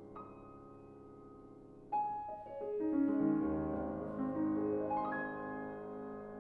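Steinway grand piano played solo. Soft held notes come first, then about two seconds in a louder note starts a descending run of notes over a low bass note, the notes ringing on over one another.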